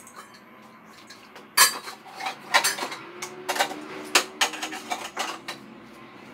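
Pots, a lid and kitchen utensils clattering: a string of sharp clinks and knocks, the loudest about a second and a half in, followed by several more spread over the next few seconds.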